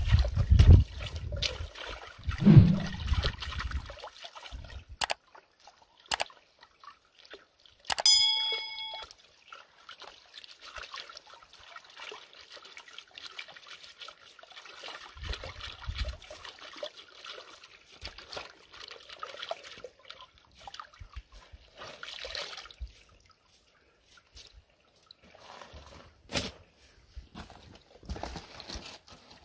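Gravel being washed in a metal mesh sieve shaken through a bucket of water: water sloshing and trickling, with scattered knocks and clinks of stones and metal. About eight seconds in, a short metallic ring.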